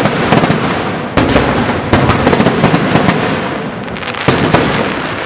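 Aerial fireworks going off in a dense barrage: many sharp cracks and pops over a rumbling wash, with fresh loud volleys about a second in, at two seconds, and a little past four seconds.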